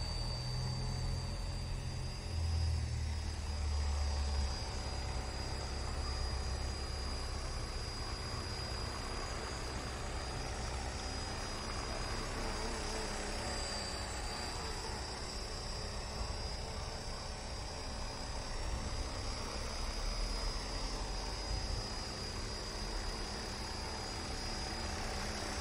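Small electric RC helicopter (WLtoys V913) running with its main rotor spinning: a steady high whine and rotor whir, as the model lifts off the ground near the end. A low rumble sits under it in the first few seconds.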